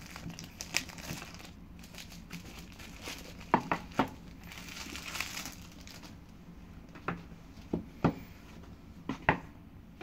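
Plastic wrapping on a product box being crinkled and torn open by hand, with a rustling stretch about four seconds in. Several short sharp taps and clicks come in between, loudest around four seconds in and near the end.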